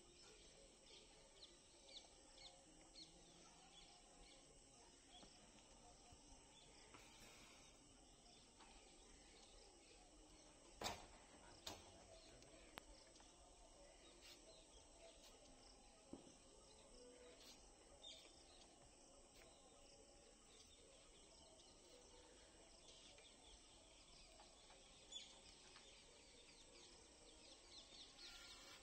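Near silence: faint outdoor ambience with scattered faint bird chirps, and a single sharp click about eleven seconds in.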